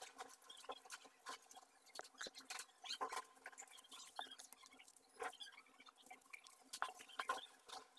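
Oil pastel crayon scratching across sketchbook paper in short, faint, irregular strokes and taps.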